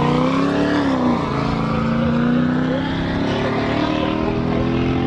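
Race car engine accelerating hard: the revs climb, drop sharply about a second in as it shifts up, then hold a steady note as the car moves off.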